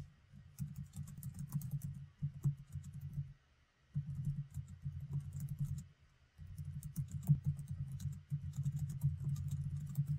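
Typing on a computer keyboard: rapid soft keystrokes in three runs, with brief pauses between them.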